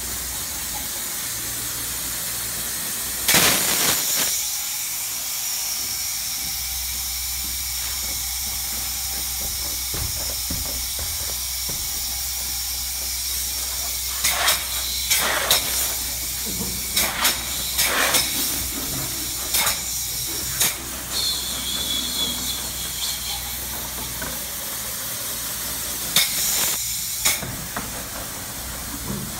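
Open-cell spray foam gun hissing steadily as it sprays foam onto the wall sheathing, over a low steady hum. Several short, sharp knocks or clicks come through, mostly in the second half.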